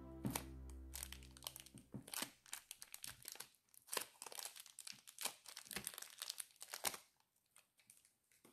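Clear plastic bag crinkling and crackling in the hand as it is worked off a vinyl figure, a dense run of sharp crackles that dies away about seven seconds in. Background music fades out about two seconds in.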